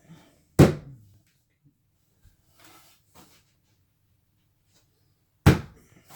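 Two sharp knocks of a hard object in a small, echoing room, about five seconds apart, with a few faint rustles between them.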